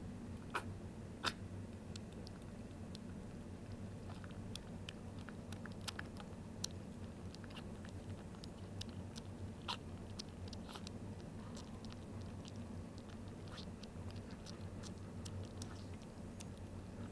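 A three-week-old kitten eating wet cat food from a bowl: irregular wet smacking and chomping clicks, a few louder ones in the first second or so, over a steady low hum.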